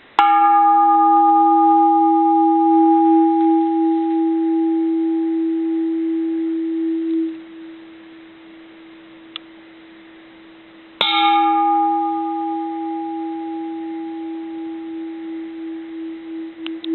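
A bronze Japanese Buddhist temple bell is struck lightly twice, near the start and again about 11 seconds in. Each strike rings on with a clear low hum and a fainter higher overtone. The first ring drops away suddenly about seven seconds after the strike, and the second wavers slowly as it fades. The long, clean ring fits a bell with no cracks.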